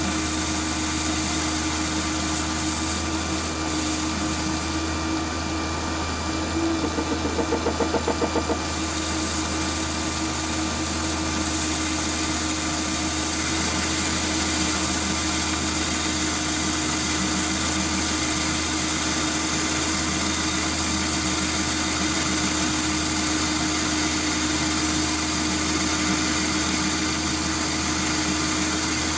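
Metal lathe running steadily, its motor and gearing giving a constant whine, while turning the outside diameter of a chuck backplate held in the lathe's chuck. A brief rhythmic flutter comes in about six to eight seconds in.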